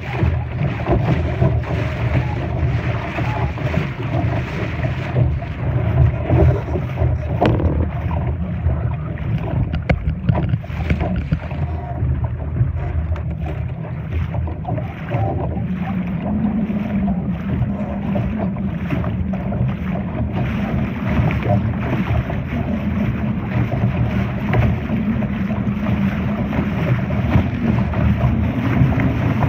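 Wind buffeting the microphone and water rushing along the hull of a Laser dinghy under sail. A faint low steady hum joins about halfway through.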